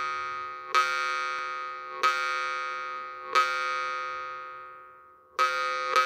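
Sergei Pyzhov jaw harp (vargan) plucked four times, each stroke left to ring out as a clear, bell-like tone that slowly fades over one to two seconds.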